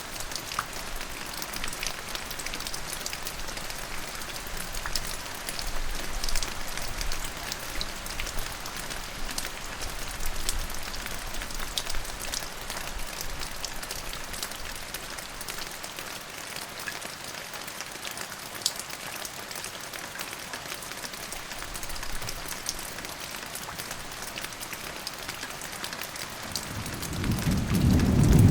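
Steady rain falling, with many separate drops clicking through it. A low rumble of thunder swells in the last two seconds and is at its loudest at the very end.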